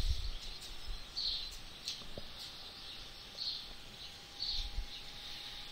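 Faint short high chirps of a small bird, one every one to two seconds, over quiet room noise, with a brief low rumble near the end.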